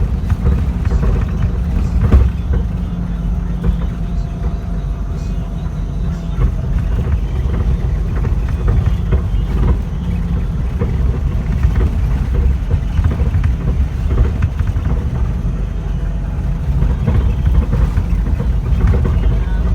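Large bus engine running with a steady low rumble.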